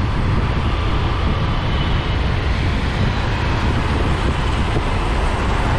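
Motorcycle being ridden along a road: a steady rush of wind and road noise on the rider's microphone, with the motorcycle engine running underneath.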